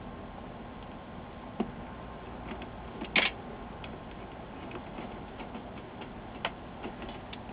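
Scattered light clicks and taps of screws and a hand screwdriver against a steel LCD monitor chassis as the screws are driven in, with one louder metallic clatter about three seconds in.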